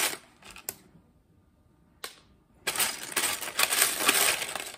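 Loose plastic Lego bricks clattering and rattling as hands rummage through a pile of them in a plastic tub while sorting. A short burst of clatter, a near-quiet pause with one sharp click about two seconds in, then steady rattling again.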